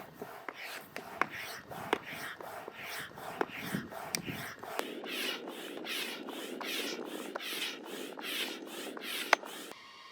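Rhythmic rubbing and scraping strokes, about two a second, with sharp clicks among them at first, stopping abruptly shortly before the end.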